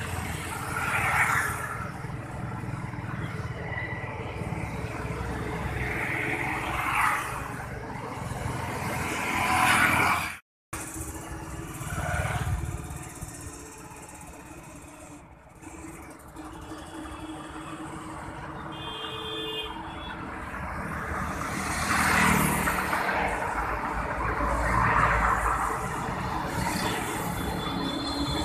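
Road traffic on a highway: vehicles passing one after another, the noise swelling and fading as each goes by. The sound cuts out briefly about ten seconds in.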